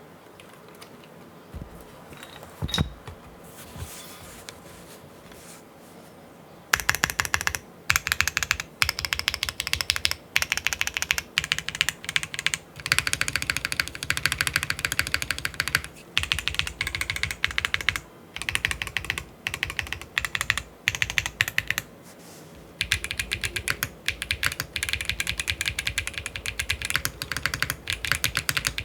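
Typing on a mechanical keyboard: a Matrix Labs 6XV3.0 Corsa with WS Black heavy tactile switches on an aluminium plate with plate foam and no case foam, with GMK keycaps. There are a few quiet seconds and a single clack about 3 s in. Fast typing starts about 7 s in and runs in bursts with brief pauses.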